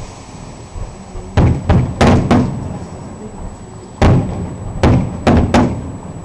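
Aerial firework shells bursting: about eight sharp bangs in quick pairs and small groups, each trailing off in a short echo.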